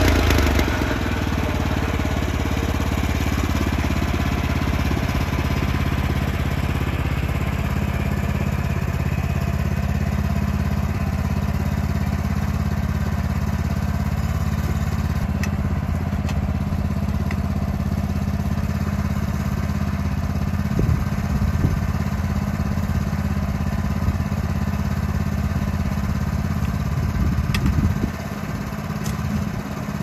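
Gas engine of a Woodland Mills HM126 portable bandsaw sawmill running steadily, with a few low knocks in the last third.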